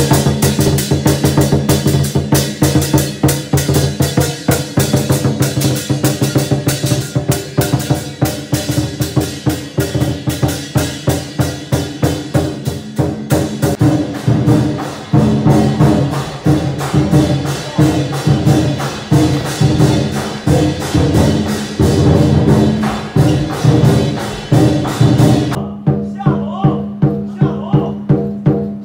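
Lion dance drumming: a large Chinese drum beaten in a fast, steady rhythm with clashing cymbals, the cymbals stopping near the end while the drum carries on.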